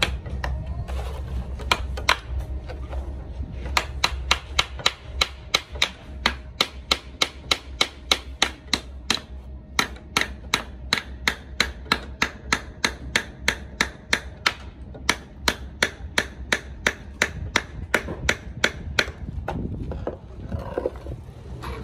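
Hammer driving nails into a timber door frame: repeated sharp strikes, about two to three a second, in a steady run that stops shortly before the end.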